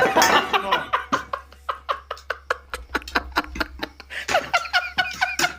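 A person laughing in a long run of quick, evenly spaced 'ha-ha' pulses, about four or five a second.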